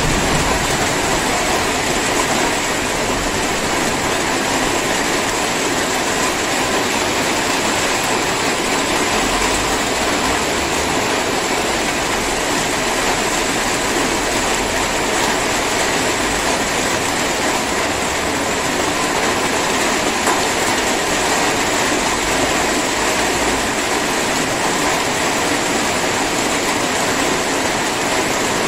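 Steady drizzle falling, an even hiss of rain.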